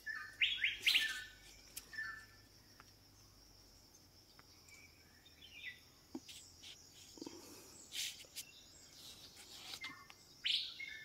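Wild birds chirping in short calls and quick sweeps, busiest about a second in and again near the end, over a steady high-pitched insect drone.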